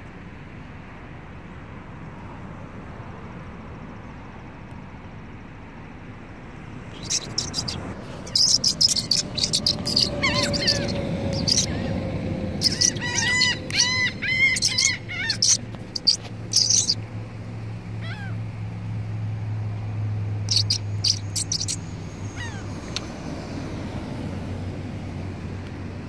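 Laughing gulls calling as they fly in: a run of high mewing cries and quick laughing notes, starting about seven seconds in and lasting about ten seconds, then a few scattered cries. A steady low hum sits underneath in the second half.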